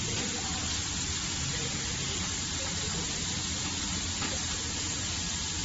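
Steady hiss with a faint low hum underneath, unchanging throughout.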